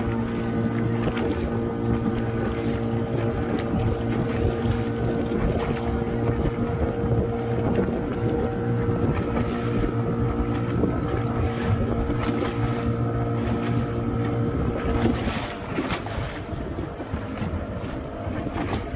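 Wooden boat's engine running steadily under way, with wind buffeting the microphone and water rushing past. About fifteen seconds in, the engine note shifts and the sound gets a little quieter.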